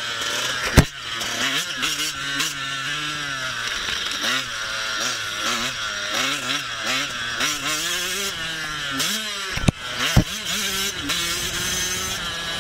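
Motocross bikes revving up and down around a track, several engine notes overlapping and rising and falling as they accelerate and shift. Sharp knocks sound about a second in and twice in quick succession about three seconds before the end.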